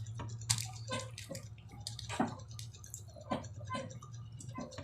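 Close-up eating sounds of someone chewing dried salted fish and rice: irregular wet chewing and lip smacks.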